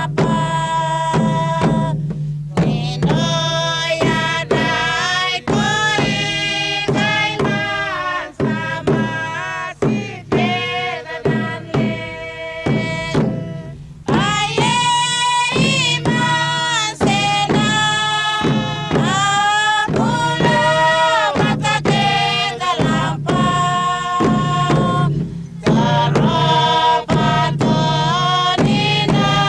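Torres Strait Islander dance song: voices singing together over a steady drum beat.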